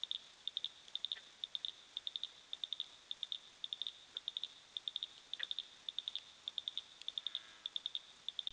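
A cricket chirping steadily, each chirp a quick run of three or four high pulses, about two to three chirps a second, over faint hiss.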